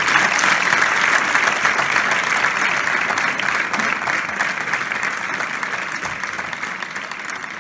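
Audience applauding, dying down gradually.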